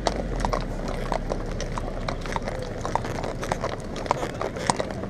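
Horse hooves clip-clopping on a paved street at a walk: sharp clicks about four times a second.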